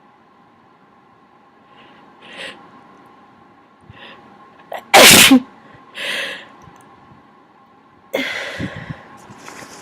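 A person sneezing once, sharply, about five seconds in, after two short catching in-breaths. This is the sneezing of someone coming down with a cold. A short breath follows, then a longer noisy burst of breath near the end.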